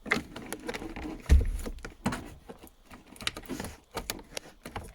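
Irregular clicks and knocks of hands working a small clip back into place on the shifter assembly, with one heavy thump a little over a second in.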